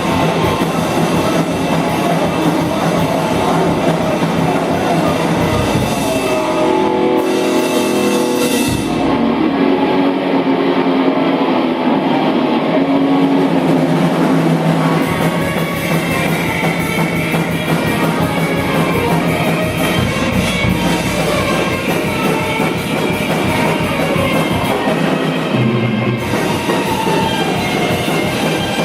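Rock band playing loud, heavy rock with electric guitar and drum kit; the cymbals drop out for a few seconds about a third of the way through, then come back.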